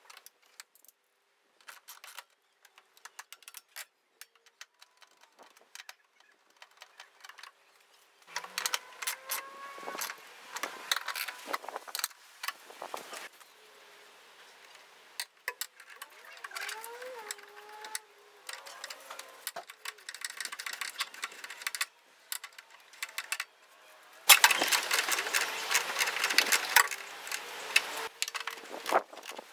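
Hand work on the truck's body and snorkel parts: scattered light clicks and rattles, then stretches of scraping and rustling with a few short squeaks, loudest near the end.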